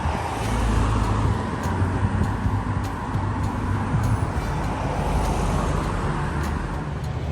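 A motor vehicle's engine running with a steady low hum, over traffic-like road noise.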